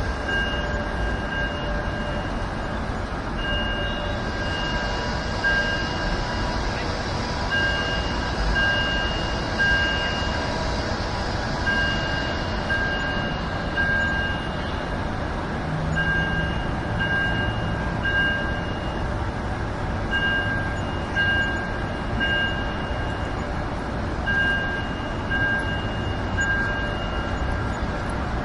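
Outdoor alarm chime sounding a high electronic tone, pulsing in groups of three short tones with a pause between groups, over a steady rumble of city traffic.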